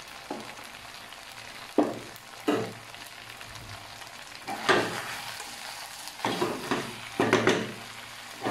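Chicken and bell pepper stir fry sizzling in a non-stick wok while a spatula stirs and scrapes through it in about seven sudden strokes, starting about two seconds in and coming closer together near the end.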